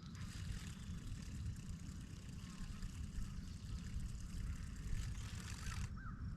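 Steady low rumble of wind on the microphone, with an even high hiss that stops shortly before the end.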